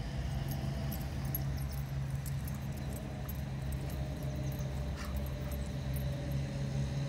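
Two dogs playing on grass: faint dog whimpering and the light jingle of collar tags over a steady low background rumble.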